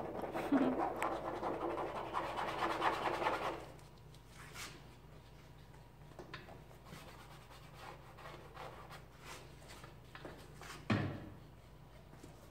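Paintbrush scrubbing against a canvas for about three and a half seconds, a dry rasping scratch, followed by a few faint taps and a single dull thump about eleven seconds in.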